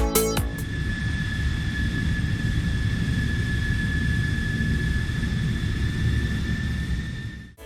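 Jet aircraft engine running: a steady rumble under a constant high-pitched whine, cut off suddenly near the end. Electronic dance music ends just before it begins.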